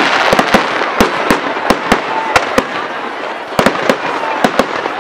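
Fireworks display: an irregular string of sharp bangs and crackles, several a second, from bursting shells and crackling stars, over a steady rushing background.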